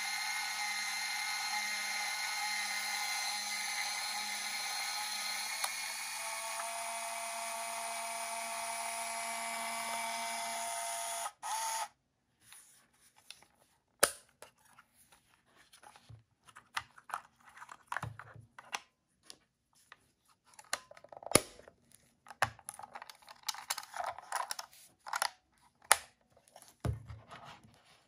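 Olympus Trip AF 30 compact camera's film-transport motor whirring steadily for about eleven seconds, its pitch shifting partway, then stopping abruptly. Afterwards come scattered sharp clicks and short knocks of the plastic camera body being handled.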